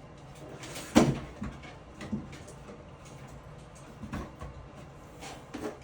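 A sharp knock about a second in, followed by a few softer knocks and clatter of objects being handled.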